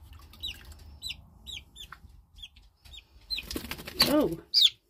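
Silkie chick peeping over and over with short, high, falling cheeps while it is being washed. For the last second and a half, water splashes loudly as the chick's wet feathers are squeezed in the tub.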